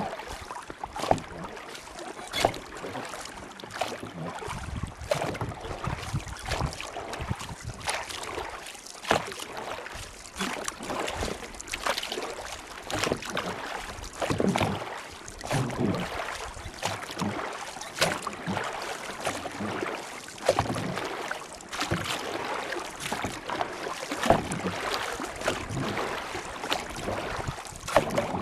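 Water sloshing and splashing with irregular knocks and clicks throughout, and some wind on the microphone.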